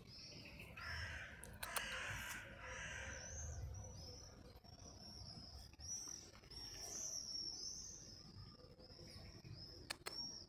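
Birds calling: short high chirps repeating steadily, with a harsher, raspy call between about one and three and a half seconds in.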